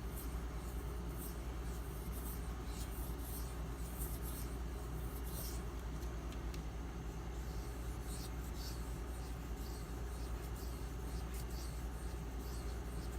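Knife blade being stroked freehand across an 8000-grit waterstone covered in slurry: a run of soft, hissing scrapes, irregularly spaced, over a steady low hum.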